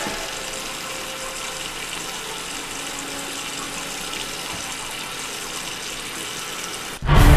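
Steady rush of water running from a bathroom tap into a sink. Loud music cuts in abruptly near the end.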